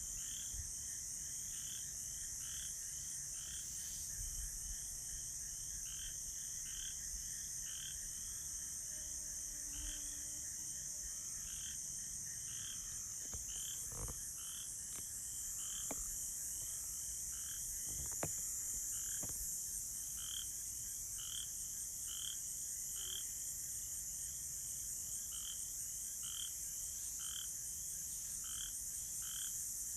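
Night chorus of frogs and crickets: frogs calling over and over in an even rhythm, about three calls every two seconds, over a steady high-pitched cricket trill.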